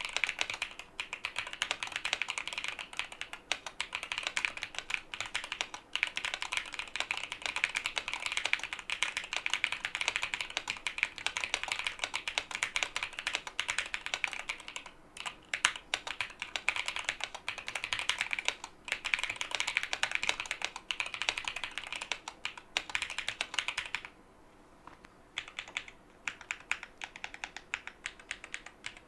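Fast, continuous typing on a Mode Loop mechanical keyboard with Akko V3 Lavender Purple tactile switches and Drop DCX keycaps, a dense stream of key clacks. About 24 seconds in the typing stops briefly, then goes on in sparser, scattered keystrokes.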